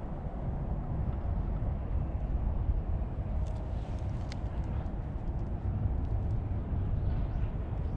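Steady low rumble of outdoor background noise, with faint light ticks scattered through the second half.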